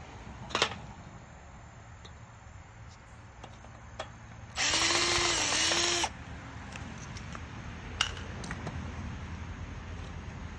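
Power drill running once for about a second and a half, its motor pitch dipping briefly under load as it works at a stripped screw. A sharp click comes just before and another a couple of seconds after.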